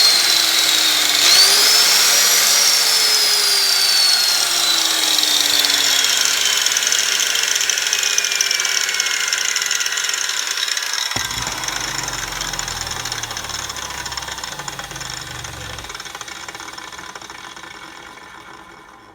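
A 115 mm (4½") mains angle grinder test-run on its newly fitted power lead: a loud high whine that rises in pitch over the first couple of seconds, then falls steadily in pitch and fades as the grinder winds down.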